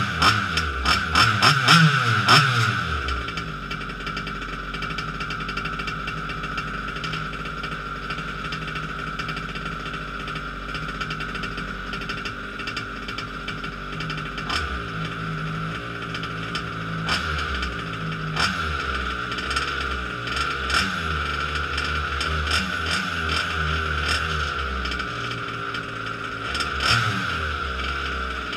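Modified 29cc two-stroke petrol engine of a Losi 5ive-T RC truck running on its first run: revving hard for about the first two seconds, then settling to a steady idle with a few short throttle blips.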